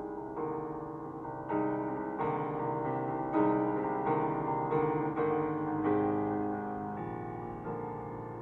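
Gentle solo piano music, slow chords and melody notes struck about once a second and left to ring.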